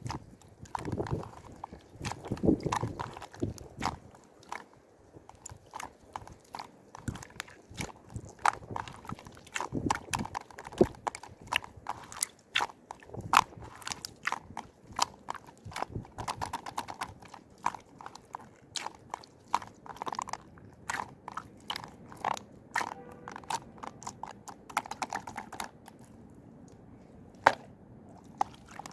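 Crunchy chewing and biting: irregular crisp crunches and clicks, thick in the middle and thinning out near the end, with one sharper click shortly before the end.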